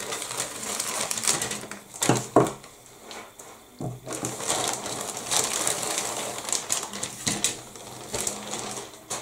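Clear plastic bag crinkling and rustling as a grey plastic model-kit sprue is pulled out of it, with a few sharp clicks about two seconds in.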